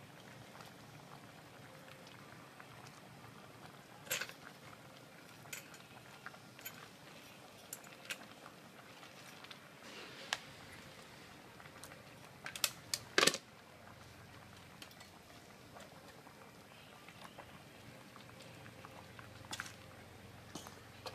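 Soup simmering in a stainless steel pot with a steady low hiss, while a steel ladle knocks and clinks against the pot and vegetable pieces are dropped in: scattered sharp knocks, a quick cluster of them about 13 seconds in being the loudest.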